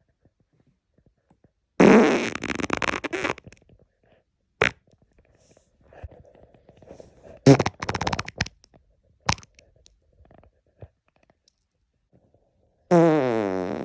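A man farting several times: a loud fart of about a second and a half, about two seconds in, a brief one, another burst around seven and a half seconds, and a long pitched one starting near the end.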